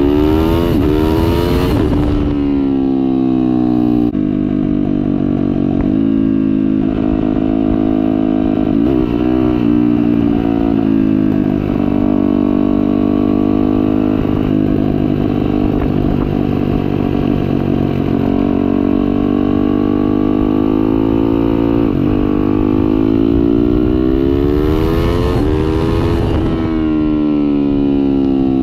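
Turbocharged Yamaha YZ450F single-cylinder four-stroke engine running on E85 under way on pavement. It revs up, and its pitch drops sharply about two seconds in. It then holds a steady cruise with slow rises and dips, and climbs again near the end before falling back.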